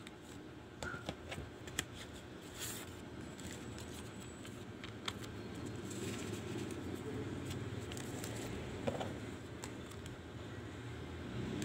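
Hands handling photocards and a clear plastic card holder: scattered light clicks and taps with soft rustling, over a steady low background rumble.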